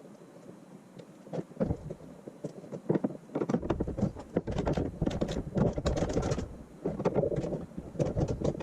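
Irregular knocks, taps and rustling from tools and hardware being handled against a plastic kayak hull as the heading sensor mount is finished. There are a few separate knocks at first, then denser, busier handling from about three seconds in.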